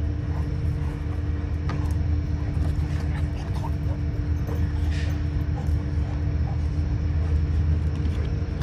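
Steady low rumble with a constant mechanical hum, two even tones held throughout, like a motor or engine running nearby.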